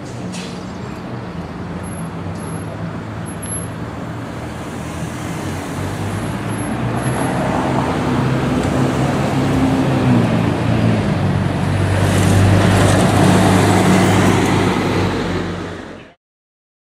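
Street traffic with a heavy vehicle's engine running, growing louder over the last several seconds, then fading out sharply near the end.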